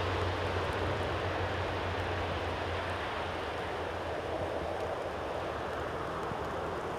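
Steady low jet roar from an Airbus A350-941's Rolls-Royce Trent XWB turbofans, fading slowly as the airliner moves away and settles onto the runway to land.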